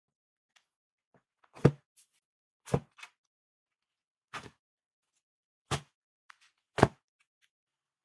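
About six sharp, separate taps and knocks, spaced irregularly with silence between: paper sticker books being pulled out and handled against a wooden shelf.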